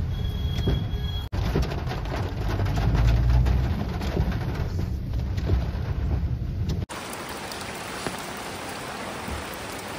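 Heavy rain drumming on a car's roof and windscreen, heard from inside the moving car over a low rumble. About seven seconds in, it cuts to an even hiss of rain falling in the open.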